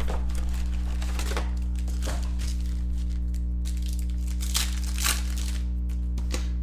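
Trading-card pack wrappers crinkling and tearing as packs are handled and opened, in scattered short rustles over a steady low electrical hum.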